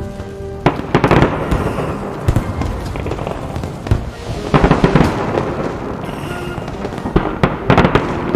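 Aerial fireworks bursting in three clusters of bangs and crackles: about a second in, midway, and near the end. Music plays underneath.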